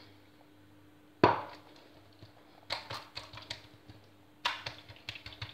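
Kitchen handling sounds while shaping msemen dough: one sharp knock with a brief ring about a second in, then two short runs of light taps and clicks as hands press and pick up dough balls on a ceramic plate on a stone counter.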